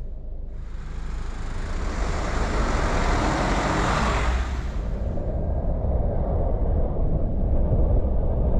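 Car on the road: a steady low rumble of engine and tyres, with a rush of tyre and traffic noise that swells from about half a second in and fades away around five seconds.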